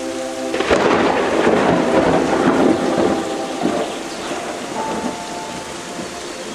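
A clap of thunder about half a second in, rumbling loudly for a couple of seconds and then fading, over steady rain. Soft music with held notes runs underneath.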